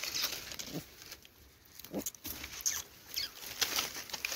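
Puppies giving two short whimpering cries, about a second in and again about two seconds in, over a crackling rustle of dry leaves and twigs.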